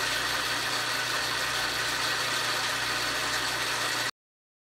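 Worn-out metal lathe running steadily under power feed while turning an aluminium piston, a steady mechanical racket from its worn gear train. The sound cuts off abruptly about four seconds in, leaving silence.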